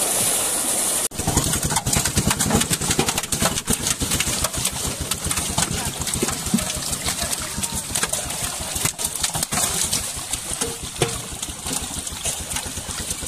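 Water splashing heavily as a large catch of fish thrashes inside a tightly drawn seine net. About a second in the sound changes to many quick, irregular slaps and splashes of fish flapping in shallow water in the net.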